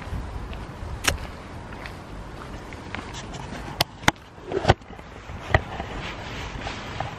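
Footsteps and handling noise from a handheld camera carried along a path, over a low steady rumble. A scatter of sharp knocks and clicks falls at irregular moments, the loudest a cluster from about four to five and a half seconds in.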